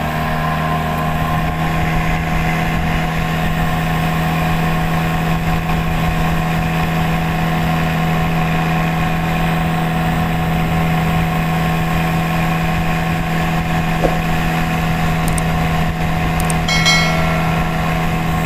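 Small boat engine running steadily at constant speed, a strong even hum as the wooden boat cruises along.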